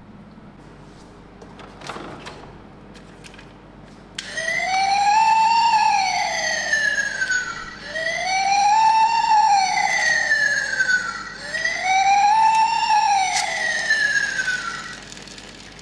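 Toy ambulance minicar's electronic siren wailing: three sweeps, each rising quickly and falling slowly, starting about four seconds in after a few faint clicks.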